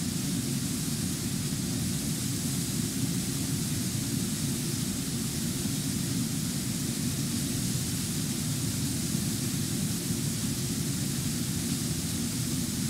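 Steady rushing of Brooks Falls: water pouring over a low river waterfall into churning rapids, an unbroken wash of noise with no change in level.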